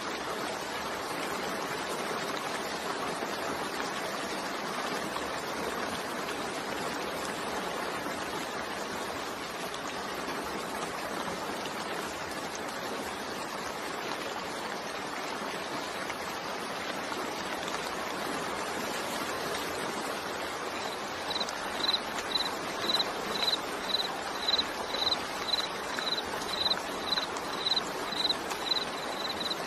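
Steady rain falling, a continuous even hiss. About two-thirds of the way in, a high-pitched chirping starts up over it, repeating about twice a second.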